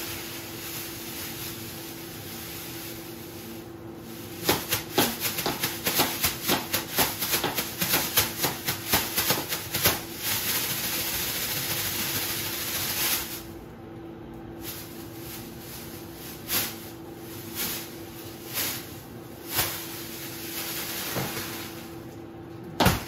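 A thin plastic bag crinkling as it is handled and blown up. There are several seconds of rapid crackling about four seconds in, then a few separate rustles, all over a steady hum.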